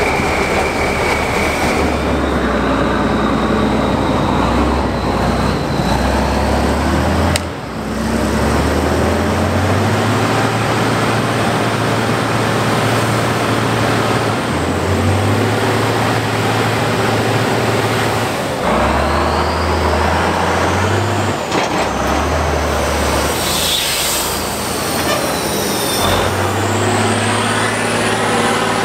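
Heavy off-road race truck's diesel engine running hard under load, its note stepping up and down every few seconds as the revs change, with a thin rising whine as it revs up. There is a brief drop about seven seconds in.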